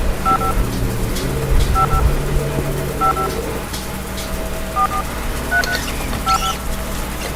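Touch-tone phone keypad dialing: six short dual-tone beeps at uneven intervals of about a second, over a steady low rumble.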